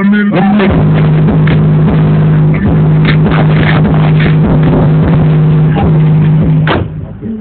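Two 12-inch subwoofers with an amp, in a truck cab, playing a loud, steady low bass tone. The sound drops off sharply near the end.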